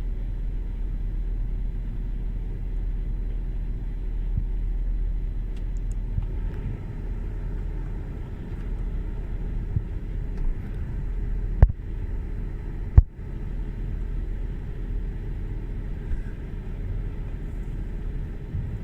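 Car engine running steadily with a low rumble. Two sharp clicks come about 12 and 13 seconds in.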